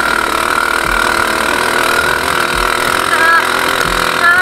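ATV buggy engine running steadily as the buggy drives over a muddy dirt track.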